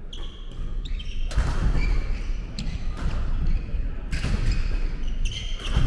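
Badminton doubles rally on a wooden gym floor: sharp racket strikes on the shuttlecock every second or so, with players' feet thudding on the boards and shoes squeaking briefly.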